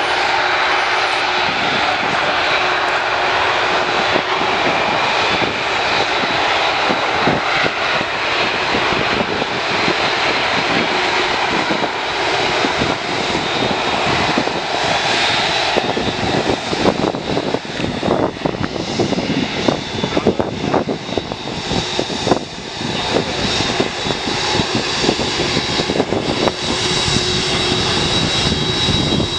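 Emirates Airbus A380's four jet engines as the airliner comes in to land, a loud steady roar that turns more uneven and fluttering about halfway through.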